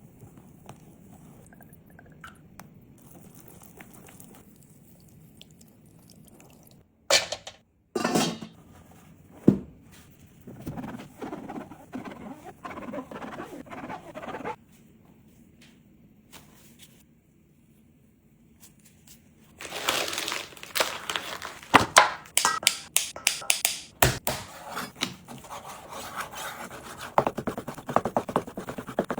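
Kitchen food-preparation handling noises: a few sharp knocks, a stretch of scraping, then from about two-thirds of the way in a quick run of clicks and clatter.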